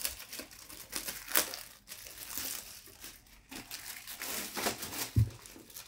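Clear plastic packaging bag crinkling as it is handled, in irregular rustles, with one dull thump a little after five seconds in.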